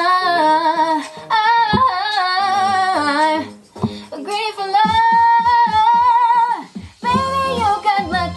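A woman singing a pop song with ornamented runs and vibrato over a backing track, holding one long note in the middle before a short break.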